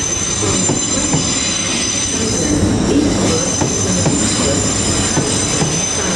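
Great Western Railway Class 800 Intercity Express Train rolling slowly around a curve, its wheels squealing in several steady high tones over the rumble and clatter of the bogies.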